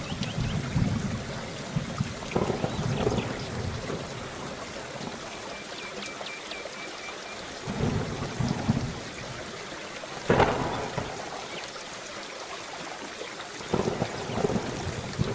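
Steady rain with thunder rumbling several times over it, the sharpest peal about ten seconds in.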